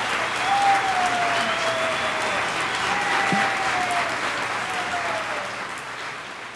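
Theatre audience applauding, with a few long falling whoops over the clapping. The applause fades down near the end.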